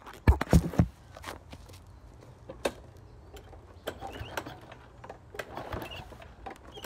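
A few heavy thumps in the first second as the camera is handled and set down, then faint scattered clicks and knocks from someone working at the handle of a push lawnmower. No engine runs.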